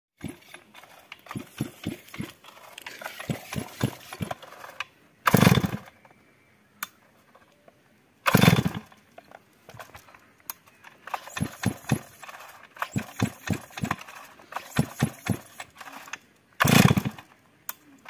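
Stihl MS 382 two-stroke chainsaw being pull-started over and over, its recoil starter cranking the engine in stretches of quick knocks. Three times the engine fires for about half a second and dies at once, a saw that will not start and run.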